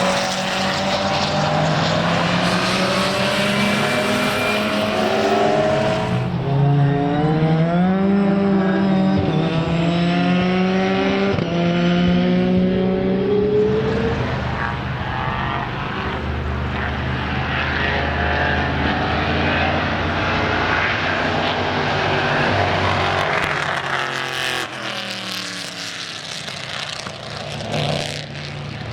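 Racing car engines at full throttle on a circuit: pitch climbs through the revs and drops back at each upshift as cars go by. The sound eases off somewhat near the end.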